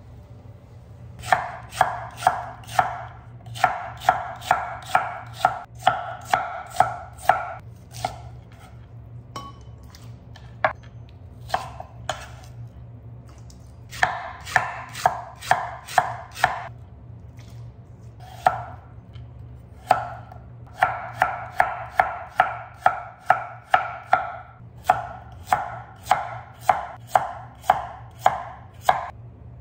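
Kitchen knife chopping vegetables on a wooden cutting board: runs of sharp knocks, about three a second, broken by a few pauses.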